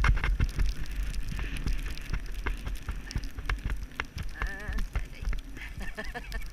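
A pony's hooves striking a snowy track at a fast pace, a quick irregular run of dull knocks, with wind rumbling on the helmet-mounted microphone.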